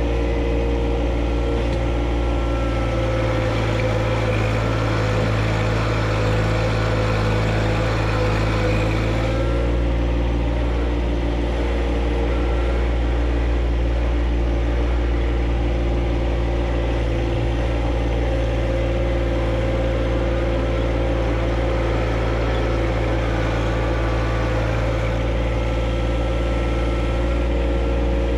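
John Deere 1025R compact tractor's three-cylinder diesel engine running steadily under work. Its note shifts about a third of the way through.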